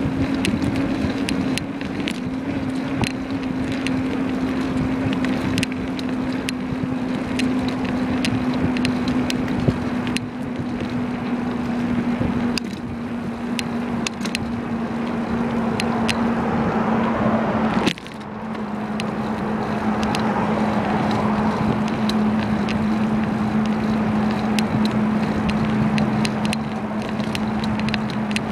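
A bicycle in motion: a steady hum that slowly sinks in pitch over wind and road noise, with frequent small rattles and clicks. About eighteen seconds in the sound dips for a moment and the hum comes back a little lower.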